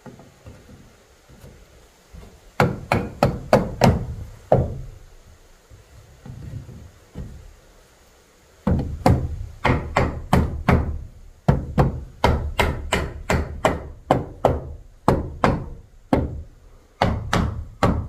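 Hammer blows on wood: a quick run of about seven strikes, a pause of a few seconds, then a longer steady run of strikes at about two a second with brief breaks.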